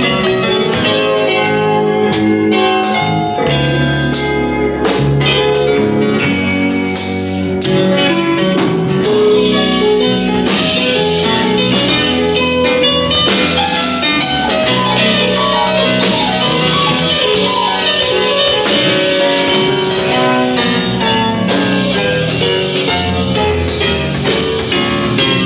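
Blues band playing live, an instrumental passage with no singing: electric guitars, bass, drum kit and Hammond organ.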